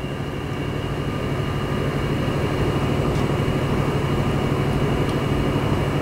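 A steady low machine-like drone with a hiss over it, growing a little louder over the first couple of seconds and then holding even.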